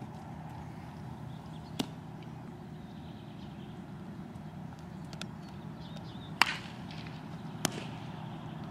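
Three sharp cracks of a baseball being struck or caught during infield practice, the loudest about six and a half seconds in. Between them there is a steady background hum.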